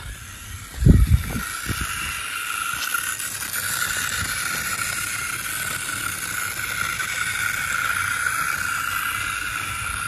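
Remote-control model Swaraj 855 tractor driving over loose dirt, its drive motor and gear train giving a steady high whine. A couple of low thumps come about a second in.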